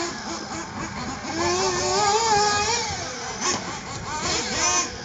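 Small nitro engine of a 1/8-scale RC buggy revving, its pitch rising and falling several times as the car accelerates and slows around the track.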